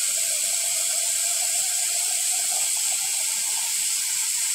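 Kitchen faucet running a steady stream of water into a plastic jar held in a stainless-steel sink, filling it.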